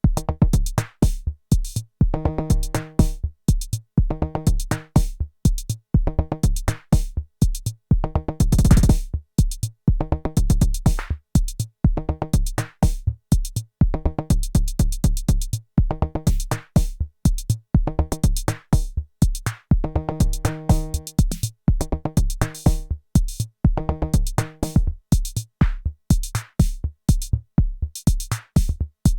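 Arturia DrumBrute Impact analog drum machine playing a sequenced beat: a deep kick, fast hi-hat ticks and repeating pitched drum notes. About nine seconds in, a short dense roll washes over the pattern.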